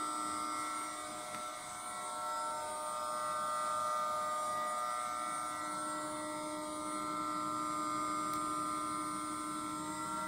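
Spindle of a Titan Pro 4-axis CNC router running at about 18,600 rpm, a steady whine with several overtones.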